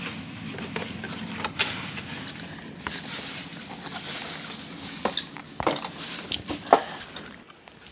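A packet of Dogsters dog ice cream being torn and busted open by hand: crinkling and rustling packaging with a series of sharp snaps and clicks, the loudest a few seconds in.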